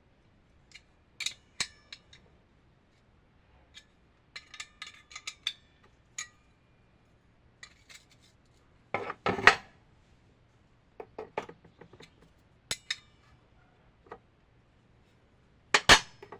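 Small metal tools and parts being handled: scattered metallic clicks and clinks with a bright ring, coming in short clusters. The loudest knocks come about nine seconds in and again near the end.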